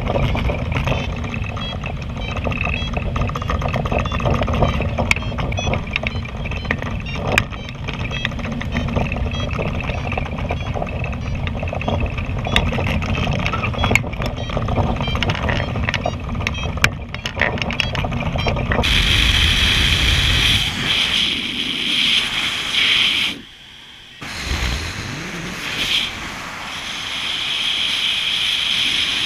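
Cockpit noise of a Cumulus motorglider in flight: a steady rush with scattered clicks. About two-thirds through, the sound abruptly turns thinner and hissier, then drops out briefly near the end.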